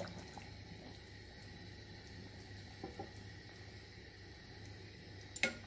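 Rendang sauce simmering faintly in a heavy iron pot on a gas stove: a low steady hiss with a faint hum. A short knock comes near the end.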